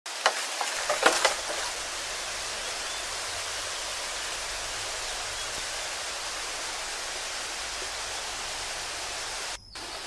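A steady, even hiss, with two sharp clicks in the first second and a brief drop-out shortly before the end.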